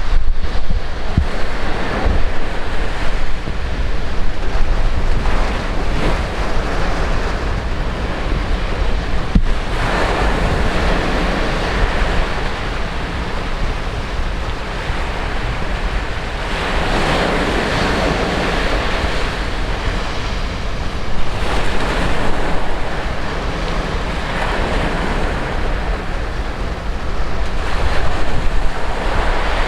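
Heavy typhoon surf crashing against the shore, with strong wind buffeting the microphone. A louder surge of breaking waves comes about ten seconds in and again a little past halfway.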